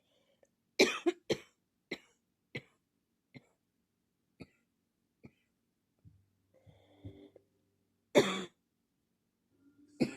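A person in a severe coughing fit: a quick run of three hard coughs about a second in, trailing off into weaker, more widely spaced coughs. A quieter low voiced sound from the throat follows around six to seven seconds, then another hard cough about eight seconds in and one more near the end.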